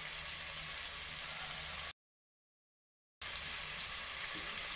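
Pork pieces sizzling gently in hot oil in a pot, a steady hiss. The sound cuts out completely for about a second near the middle, then resumes.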